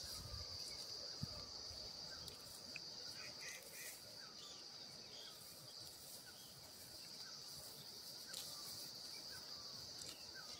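Faint steady high chirring of insects, with a bird repeating a short falling call about once a second.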